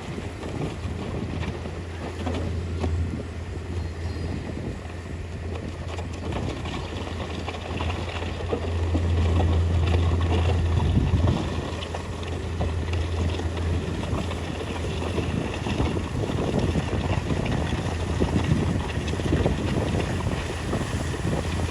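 Mitsubishi 315M bulldozer's diesel engine running while it works, a steady low drone that swells louder for a few seconds near the middle.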